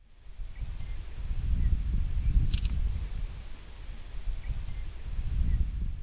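Insects chirping in a high, rapidly pulsed trill, in bursts of about a second with short gaps, over a low uneven rumble; the sound fades in over the first second.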